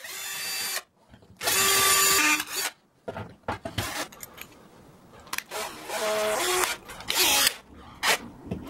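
Handheld power drill boring a hole into a wall in short stop-start bursts. Its motor whine rises as it spins up and dies away between trigger presses, and the longest, loudest burst comes about a second and a half in.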